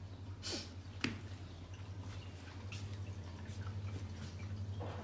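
A few sharp, light clicks or taps, the loudest about a second in, over a steady low hum.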